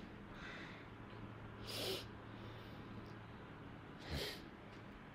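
Two short, breathy sniffs from a woman close to the microphone, about two seconds apart, over a faint steady hum.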